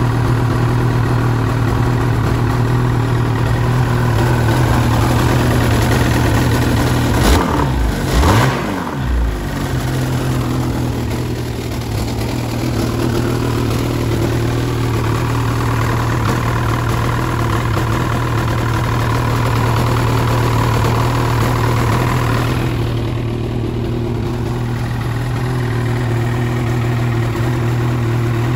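2017 Ski-Doo Summit 850 snowmobile's Rotax 850 E-TEC two-stroke twin idling steadily. A brief unsteady patch with a few knocks comes about eight seconds in.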